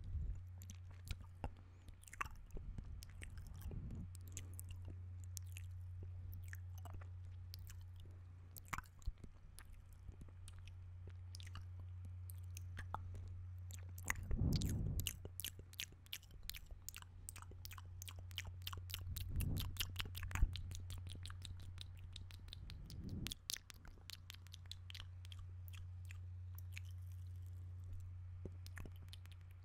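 Close-miked ASMR mouth sounds: wet clicks and smacks of lips and tongue, scattered at first, then in quick dense runs through the middle with a few breathy puffs, over a steady low hum.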